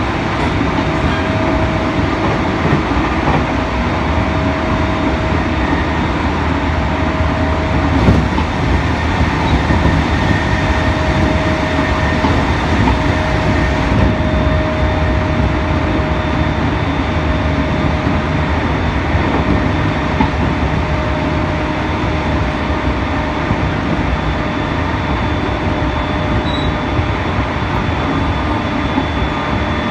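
JR E231 series electric train running at speed, heard from inside the car: a steady rumble of wheels and motors with a steady whine over it, and a single sharp knock about eight seconds in.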